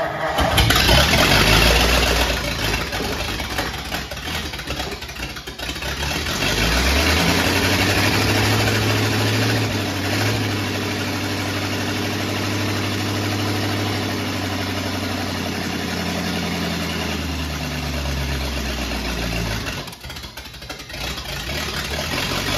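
1950 Ford F1's flathead V8 running after being started, now running evenly without popping or sputtering. About six seconds in it speeds up and holds there, then it drops back near the end.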